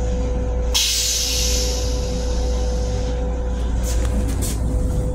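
M7 railcar toilet flushing: a sudden hiss of spray starts about a second in and dies away over the next two seconds, over the steady hum and rumble of the railcar.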